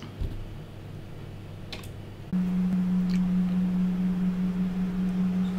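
A steady low electrical or mechanical hum. About two seconds in, a quieter, deeper hum gives way suddenly to a louder, higher-pitched one, with a soft thump shortly after the start.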